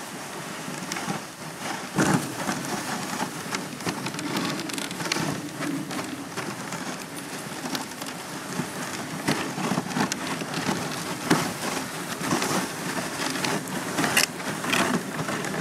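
Dog sled moving over snow: a steady hiss of the runners sliding, with frequent crackling crunches of snow.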